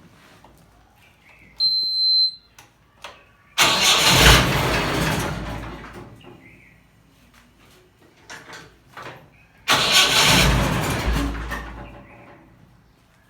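Willys jeep engine being started twice: each time it fires loudly and then dies away over two or three seconds instead of settling to an idle, the engine catching and stalling. A short high electronic beep comes before the first attempt.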